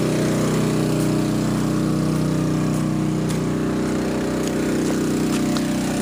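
Champion 2800-watt inverter generator running steadily under load, powering an RV's 15,000 BTU air conditioner.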